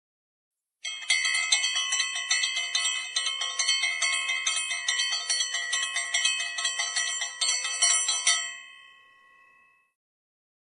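Hindu puja hand bell (ghanti) rung rapidly and continuously during aarti, several strikes a second, starting about a second in. The ringing stops near eight and a half seconds and rings out for about a second.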